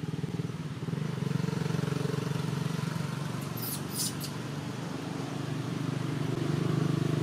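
A motor engine running steadily with a low, fast-pulsing drone that grows a little louder about six seconds in. Three short high-pitched sounds come about four seconds in.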